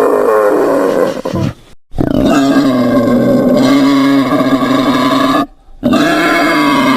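Wild boar giving long, drawn-out pitched calls, each held for a few seconds, broken by two short silences.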